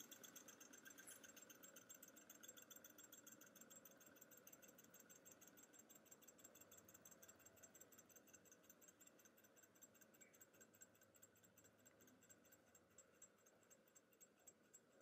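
Alpha-type model Stirling engine coasting down after its burner flame is blown out: a faint, quick rhythmic ticking from its running gear that slows and fades as the flywheel loses speed.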